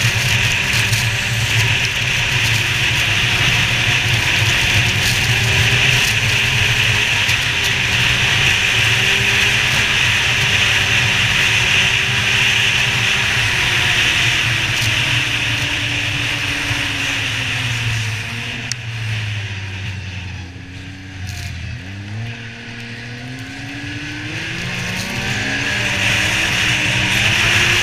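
Yamaha Viper XTX snowmobile's three-cylinder four-stroke engine running hard along a trail, under a steady rush of wind and track noise. About two-thirds of the way through the throttle eases off and the engine drops in pitch and level, then it climbs back up in rising revs as the sled accelerates again.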